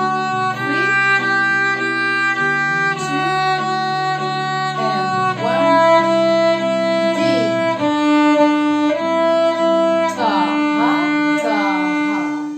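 Violin played by a teacher, bowing a simple beginner tune in steady, even notes on the D string over a backing track, settling onto long held notes near the end.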